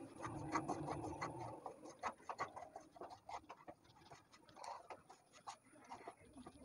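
Wooden spatula stirring and scraping a damp semolina and coconut mixture around a kadai: faint, irregular scratchy strokes.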